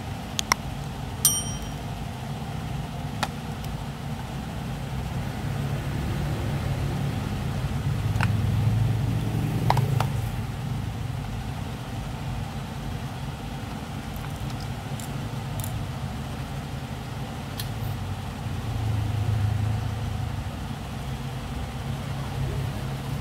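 Screwdriver and plastic toy-blender casing being handled as the housing is unscrewed and opened: scattered small clicks and taps, with a short metallic ring about a second in. Underneath, a low rumble swells twice, around a third of the way in and again late on.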